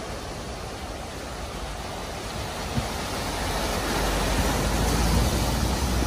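A car wading through deep floodwater at a ford: a steady rush and splash of water pushed aside by the car, with a low rumble that grows louder over the last two seconds.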